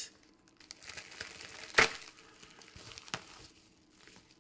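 Faint rustling and handling of gift packaging being opened, with a sharp snap about two seconds in and a softer click about a second later.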